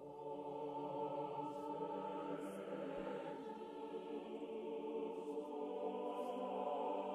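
Background music of slow, long-held chords with a choir-like sound, swelling in just as the picture fades in from black.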